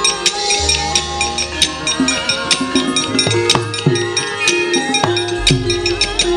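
Javanese gamelan playing wayang kulit accompaniment. Frequent sharp clicks, like the dhalang's keprak and kecrek, sound over kendhang drum strokes that drop in pitch, with steady held tones from the metal instruments underneath.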